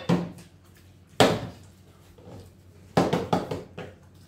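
Plastic bottle flipped and landing on a wooden tabletop: three sharp thuds about a second and a half apart, the last followed by a brief clatter as it bounces.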